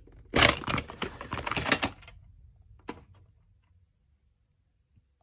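Plastic VHS case being opened and the videocassette taken out: a quick clatter of plastic clicks and rattles lasting about a second and a half, then one more click about three seconds in.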